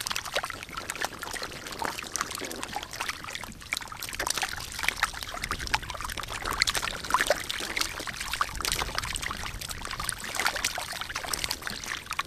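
Many catfish stranded in shallow muddy water, flapping and wriggling: a dense, irregular patter of small wet splashes and slaps.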